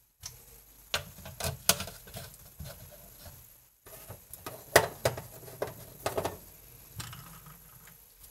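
Irregular clicks and light knocks of glass and ice cubes, a few sharper ones with a short ring, as a lime wedge is pushed onto the rim of a glass of orange juice over ice.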